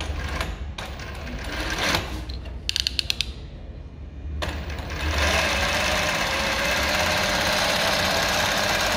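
A few clicks and knocks, including a quick run of sharp clicks, come from the Jack JK-20U63 industrial zigzag lockstitch machine as it is set. About halfway in, the machine, driven by a DC servo motor, starts stitching and runs steadily at an even speed.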